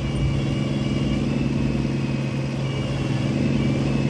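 Rollback tow truck's engine idling steadily at an even, unchanging pitch.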